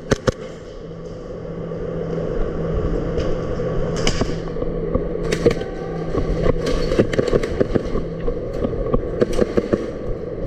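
Airsoft guns firing: scattered sharp shots, a pair at the very start and a handful of quicker runs in the second half, over a steady background hum.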